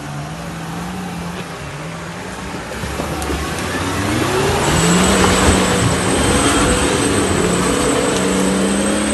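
Off-road 4x4's engine working under load, revving up about four seconds in and then holding at higher revs as it gets louder.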